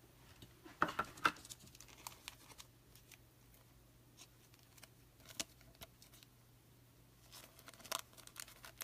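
Faint handling of plastic trading-card holders: soft rustles, scrapes and clicks as a card is fitted into a sleeve and top loader, with a few sharper clicks about a second in and near the end.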